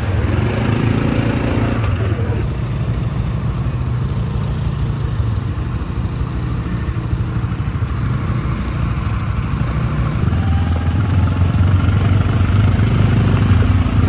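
Quad bike (ATV) engines running at low speed, a steady low drone that gets a little louder in the last few seconds.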